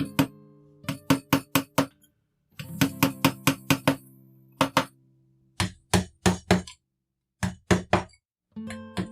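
Acoustic guitar background music: runs of sharp strummed strikes, some over held chords, broken twice by sudden drops to silence.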